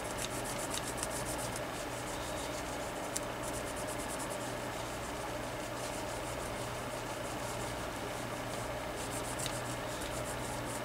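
Rapid scrubbing strokes on a cordless phone handset's keypad circuit board, being cleaned with 70% isopropyl alcohol, coming in several short spells over a steady low hum.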